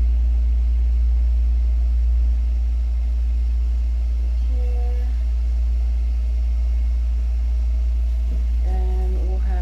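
A steady low hum or rumble, loud and unchanging, dipping slightly about two seconds in.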